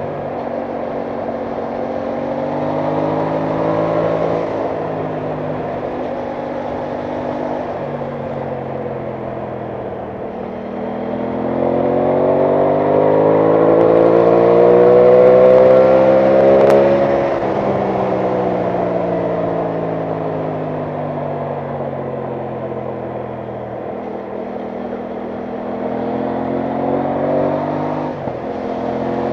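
Aprilia Tuono 660 Factory's parallel-twin engine under way: running steadily, then pulling hard with its pitch rising from about ten seconds in, falling back off the throttle, and rising again near the end with a brief dip at a gear change.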